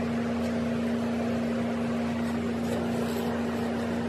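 An electric shop machine running with a steady hum and whir.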